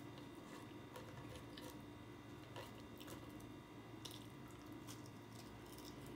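Faint chewing, with soft wet mouth clicks and smacks scattered irregularly, over a steady low room hum.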